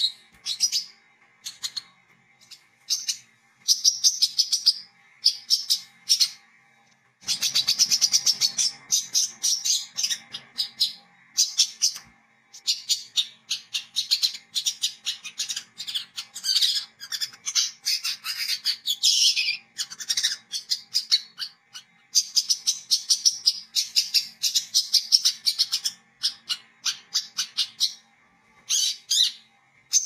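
Brown-throated sunbird (kolibri kelapa, wiceh) singing: a rapid, high twittering chatter of quick chirps in bursts, with short breaks between them.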